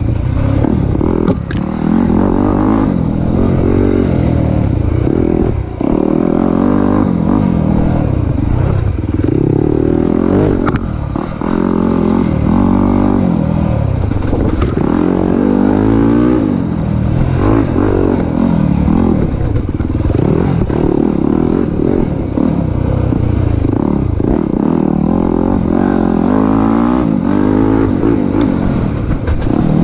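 Dirt bike engine under hard riding, revving up and falling back every second or two as the throttle opens and closes, with a few sharp clicks.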